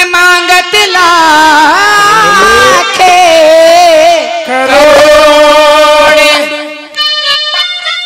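A woman sings long, drawn-out, wavering notes of a Haryanvi devotional song into a microphone with little or no beat behind her. About seven seconds in the accompanying band comes in with rhythmic drumming.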